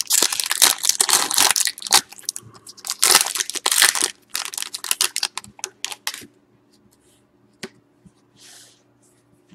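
Foil-lined hockey card pack being torn open and crinkled by hand: a dense run of crackling and tearing that stops about six seconds in, leaving only a click and faint rustles.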